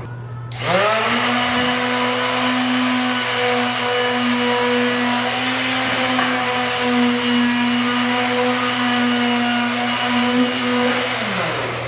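Electric sander motor spinning up, running at a steady pitch for about ten seconds, then winding down, over a steady low hum.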